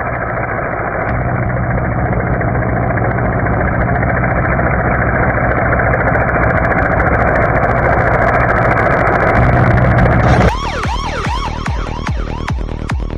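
A steady engine noise with a low hum. About ten seconds in it cuts abruptly to an emergency vehicle's electronic siren in a fast yelp, its pitch sweeping up and down about three times a second.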